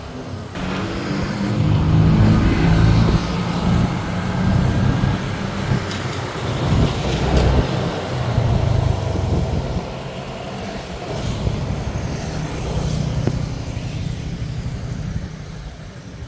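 Engine and road noise of a moving road vehicle, a steady low rumble that swells and eases in level.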